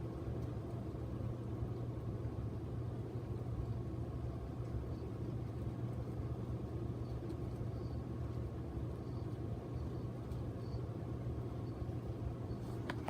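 Casablanca Ventura II ceiling fan running steadily, its motor giving a low, even hum over a rush of air. There is a brief click near the end.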